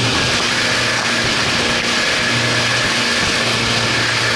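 Twin 200 hp outboard motors running steadily at speed, under a loud, even rush of wind and spray as the boat crosses rough water.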